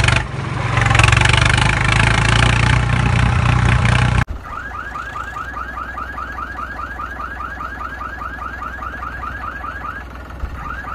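Tractor engine sound running steadily, cut off suddenly about four seconds in. Then an electronic alarm-like chirp repeats rapidly, about five a second, each chirp rising in pitch, with a brief break near the end.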